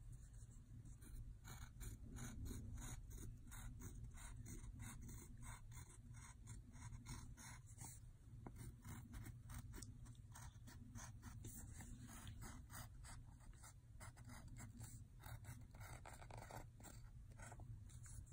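Faint scratching of a wooden pencil on paper in quick short strokes, several a second, as zigzag lines are drawn.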